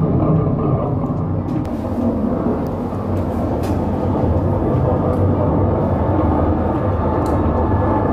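Small automated sightseeing tunnel car running along its guideway: a steady rumble with a few faint clicks.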